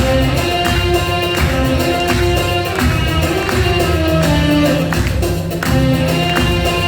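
Live traditional Iraqi ensemble music, with held melodic notes over hand percussion struck in a steady rhythm.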